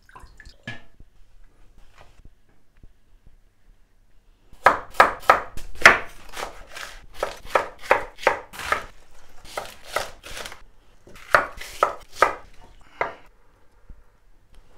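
Kitchen knife chopping vegetables on a wooden cutting board: a run of quick, sharp strokes, about three a second, starting about four and a half seconds in, with a couple of short breaks, and stopping shortly before the end.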